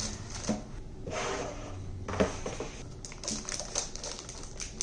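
Unboxing handling noises: a few light knocks and clicks with soft rustling of packaging as a laptop in its plastic film and its cardboard box are moved about on a wooden table.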